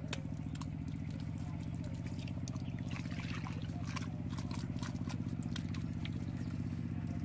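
A small engine running steadily, a low drone with a fast regular pulse, with scattered soft wet slaps and clicks of hands patting and smoothing mud.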